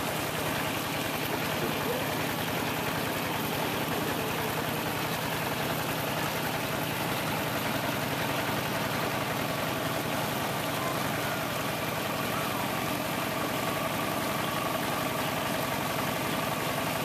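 Small boat's engine running steadily as it motors through floodwater.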